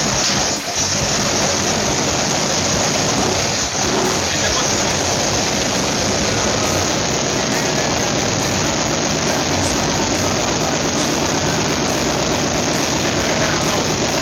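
Ford 351 Windsor V8 with an Edelbrock Performer RPM top-end kit running steadily and loudly on its first start-up.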